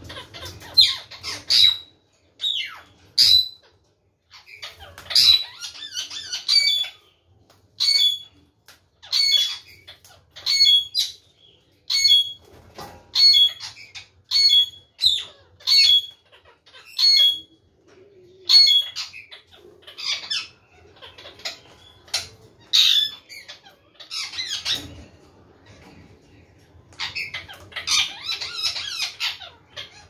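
Indian ringneck parakeets giving short, sharp squawks about once a second, with a burst of overlapping chatter near the end.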